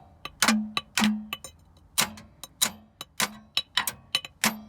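A 2000 Chevy Malibu's starter motor being struck with a metal tool: about a dozen sharp clanks at an uneven pace, each with a short ringing tone. The starter is failing, and smacking it like this usually helps it crank.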